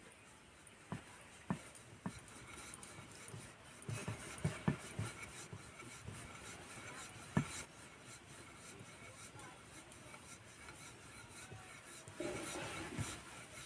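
Wooden rolling pin rolling a flour-dusted stuffed paratha on a stone rolling board: faint rubbing as it goes back and forth, with a few light knocks scattered through and a slightly louder stretch of rolling near the end.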